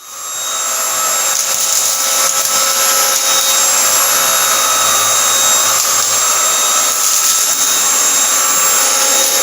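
BLACK+DECKER Power Series Pro Pet cordless stick vacuum running steadily: a high motor whine over a rush of air.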